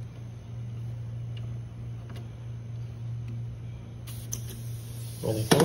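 A steady low hum with a few faint ticks. About four seconds in, a thin high hiss joins, and just before the end a louder burst of mixed noise sets in.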